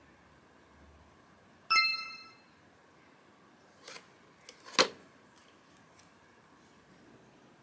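Digital bathroom scale gives one bright electronic beep that fades quickly as it locks in the weight reading. A few seconds later come a light tap and then a sharp knock, the loudest sound, as bare feet step off the scale.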